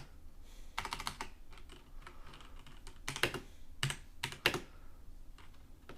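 Typing on a Razer BlackWidow Stealth mechanical keyboard with Razer Orange switches: irregular keystroke clicks in short runs, with brief pauses between them.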